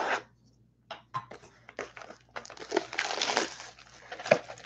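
Clear plastic shrink-wrap being cut and peeled off a trading-card box, crinkling and crackling in irregular bursts with sharp snaps, densest from about two and a half to three and a half seconds in.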